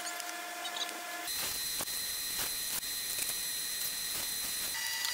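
Cordless drill running at a steady speed, boring a pilot hole into a pine board. The motor's whine jumps abruptly to a higher pitch about a second in and shifts again near the end.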